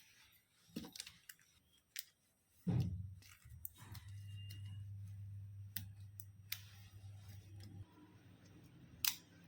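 Scattered clicks of small parts and tools being handled, then a knock followed by a steady low electrical hum for about five seconds, which drops weaker near the end.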